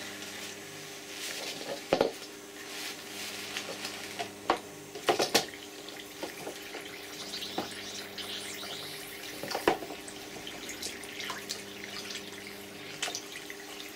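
Compressed air from a paintball HPA tank hissing steadily as it leaks out of 3D-printed PETG parts fitted to a paintball marker: the printed parts are not airtight. A few sharp knocks and clicks come from the marker being handled.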